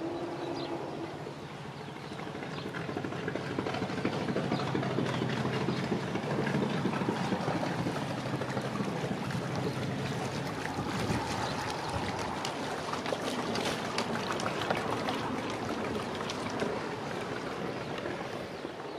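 A motor cruiser's engine running as the boat passes, a low steady drone that grows louder about three seconds in. Splashing water noise joins it in the second half.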